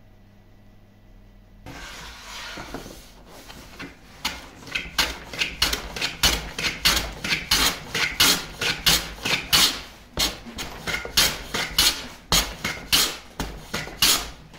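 Backsaw crosscutting a pine board by hand. The saw strokes begin about two seconds in and settle into an even rhythm of about three strokes a second, stopping just before the end.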